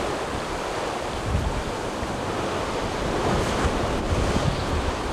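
Sea surf washing and breaking against a rocky shoreline, with wind buffeting the microphone in gusts.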